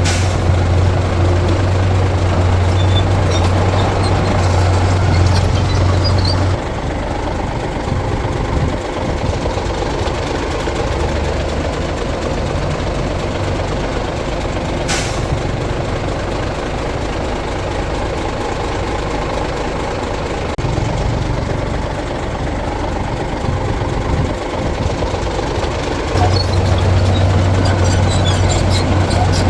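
Heavy diesel earthmoving machinery running steadily. A deep engine drone is loudest for the first six seconds, eases off, and comes back strongly near the end. One sharp click sounds about halfway through.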